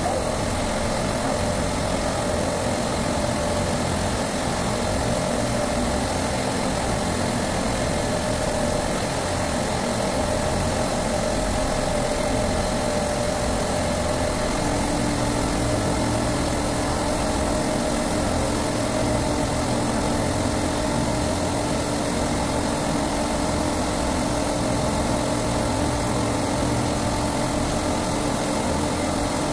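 Steady drone of supermarket refrigeration compressors running in the machine room, with a lower hum joining about halfway through.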